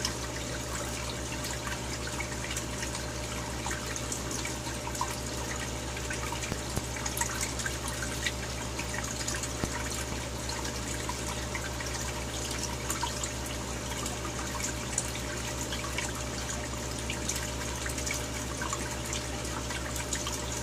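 Aquarium water trickling and bubbling from the tank's filtration and heavy aeration, with many small drips and pops over a steady low hum.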